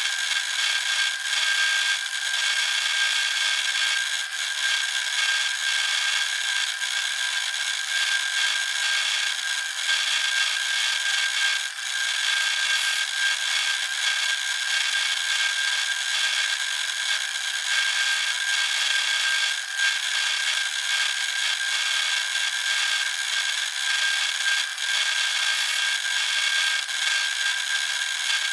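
Designed energy-flux sound effect: a steady, abrasive scraping drone with no low end, a thin held tone running through a hiss above it.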